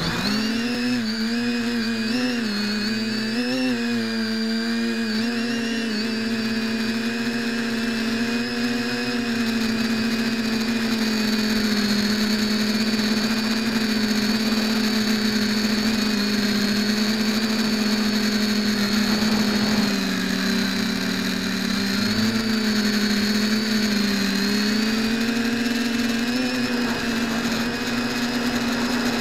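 TBS Discovery-clone quadcopter's brushless motors and propellers buzzing steadily, heard close up through the onboard camera's microphone. The pitch climbs as it lifts off at the very start, wavers with the throttle a few seconds in, and dips briefly about twenty seconds in.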